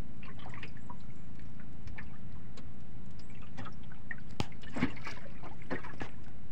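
Sea water lapping and trickling against the hull of a small boat over a steady low rumble, with scattered light clicks.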